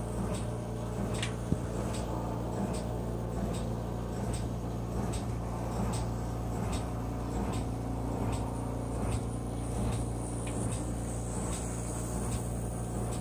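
Märklin Z scale 8102 steam locomotive's small three-pole motor running steadily with a low hum, with light clicks about twice a second as it circles the track. It runs smoothly, its brushes and armature freshly cleaned after it had arrived dead.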